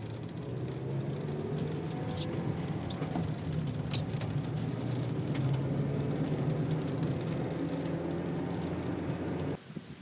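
Car engine and road noise heard from inside the cabin while driving on a wet road: a steady low hum with a few light clicks. It cuts off suddenly near the end.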